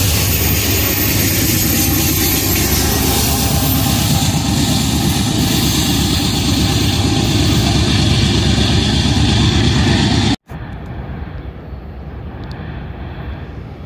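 Freight train of covered hopper cars passing close, with a Union Pacific diesel-electric locomotive's engine running loud and steady. About ten seconds in the sound cuts off sharply to a much quieter steady rumble.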